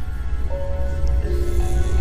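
Background music: a slow melody of held notes that change pitch in steps, over a deep, pulsing low bass.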